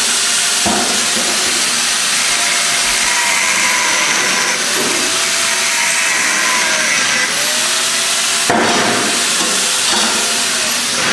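Electric angle grinder grinding the edges of stacked steel plates: a steady, hissing grind whose pitch dips and recovers several times as the disc is pressed against the metal.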